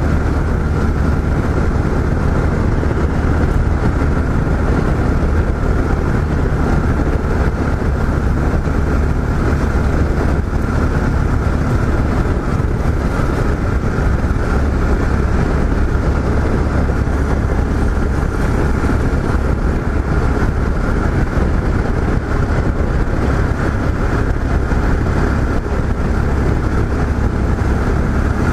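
Yamaha XT 660Z Ténéré's single-cylinder engine running at a steady cruising speed, mixed with wind noise from riding, holding an even pitch and level with no shifts or revving.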